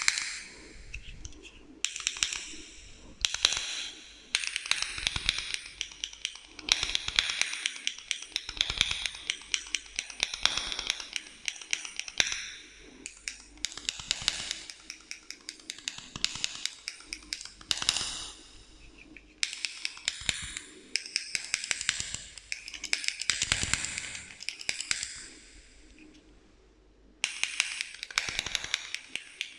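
Rapid ASMR tapping and scratching on hand-held objects with an echo effect, in dense clicking runs of a few seconds each broken by short pauses, with a quieter lull a few seconds before the end.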